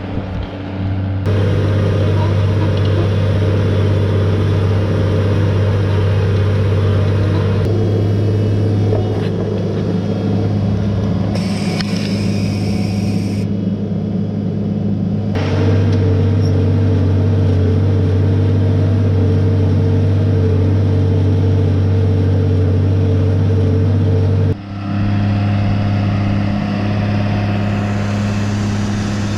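New Holland T6050 tractor's diesel engine running steadily under load while pulling a plough. The engine note shifts abruptly several times as different shots are cut together.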